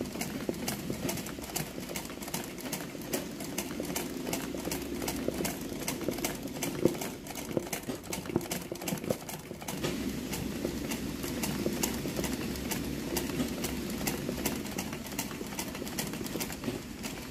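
Sewing machine running steadily while stitching freehand embroidery, its needle mechanism clicking in a quick, even rhythm over a low hum.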